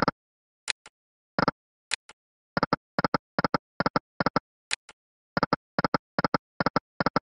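Online slot game's electronic reel sound effects: short clicks as the reels spin and stop. They come in quick, evenly spaced runs, mostly in pairs, with dead silence between. A few brighter ticks fall about a second in, near two seconds, and near five seconds.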